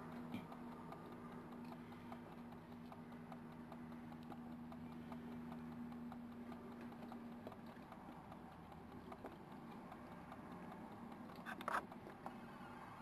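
Faint crunching and scratching of foxes feeding on food scattered on the ground, made up of many small clicks. A steady low hum runs underneath until a little over halfway through, and a brief cluster of louder clicks comes near the end.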